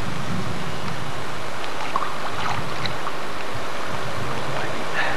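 Steady rush of river water with wind on the microphone, and a few faint splashes at the water's edge as a carp is slipped back into the river.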